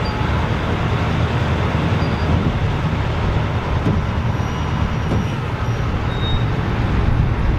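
Fendt 1050 Vario tractor's large six-cylinder diesel engine running steadily while the tractor moves slowly.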